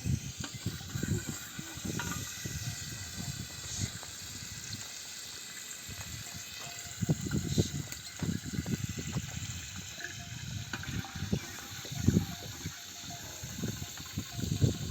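Wind buffeting the microphone in irregular gusts, over a steady faint hiss.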